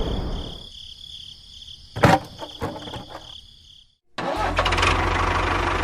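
An engine running at a steady idle comes in suddenly about four seconds in, after a brief silence. Before that there is a fading noise with a faint steady high whine, and a sharp knock about two seconds in.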